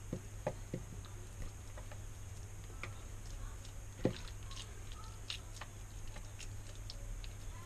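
Hands squeezing and shaping a moist egg, potato and ham patty mixture in a bowl: soft scattered squelches and clicks, one a little louder about four seconds in, over a low steady hum.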